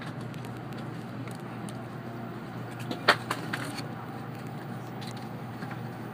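Steady running noise inside the cabin of an N700-series Shinkansen: an even rumble with a low hum, and one sharp click about three seconds in, followed by a couple of lighter clicks.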